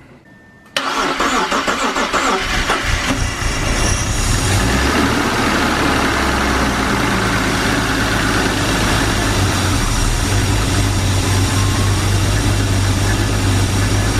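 BMW E36 engine started for the first time after a head gasket replacement: the starter cranks about a second in, the engine catches within about two seconds and settles into a steady idle. The engine is running healthily after the rebuild.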